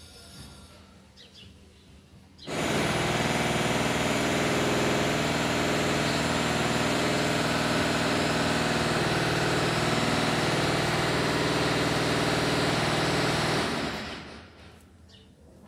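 A loud, steady mechanical drone with a low hum, like a motor or engine running, that starts suddenly a couple of seconds in and dies away about two seconds before the end.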